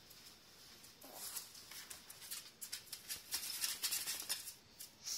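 West Highland white terriers' claws scrabbling and clicking on a hard floor as they wrestle, a quick irregular run of ticks and scrapes.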